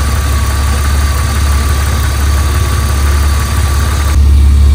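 BMW E36 M3's straight-six engine idling warm, with the thermostat open, while the cooling system is bled at the bleeder screw. It is a steady hum that changes abruptly about four seconds in to a louder, deeper rumble.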